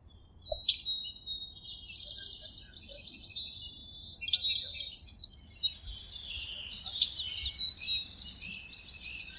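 Birds chirping and singing: rapid trills and quick downward-sweeping whistles, loudest about halfway through.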